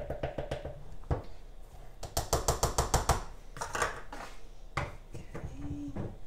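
Plastic measuring cup tapping and scraping against a plastic container and a stainless steel bowl while powdered sugar is scooped and knocked out, in two quick runs of rapid taps, the second from about two to three seconds in, with a few single knocks of things being set down.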